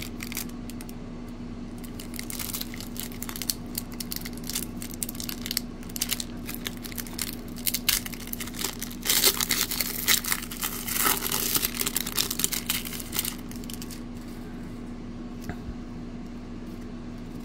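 Wrapper of a 1994-95 Fleer basketball card pack being torn open and crinkled by hand, loudest about nine to thirteen seconds in, with a faint steady low hum underneath.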